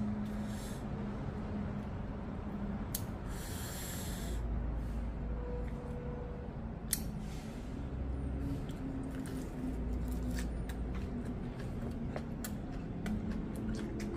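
A person eating close to the microphone: chewing with small wet mouth clicks and chopstick taps, and a sharp sniff through the nose about three seconds in, as when eating very spicy kimchi.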